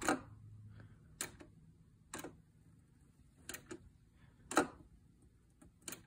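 A handful of faint, irregular sharp clicks, one every second or so, over a low background hum. The loudest click comes a little after four and a half seconds.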